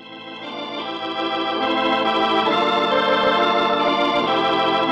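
Radio-drama musical bridge played on organ: sustained chords swell up over the first second or so and shift to new chords twice, marking the change of scene.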